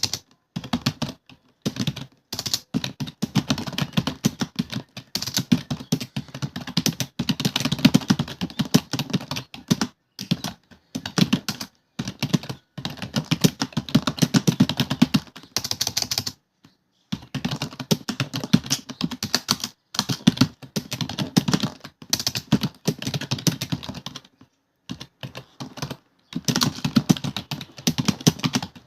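Rapid typing on a computer keyboard, fast runs of key clicks broken by short pauses every few seconds.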